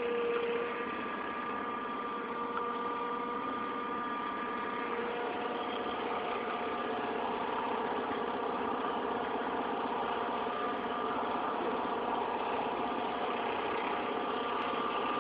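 Forklift engine running steadily, with a few faint steady tones over it.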